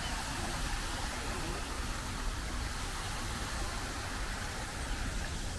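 Steady outdoor background noise: a constant low rumble with a hiss above it and no distinct events.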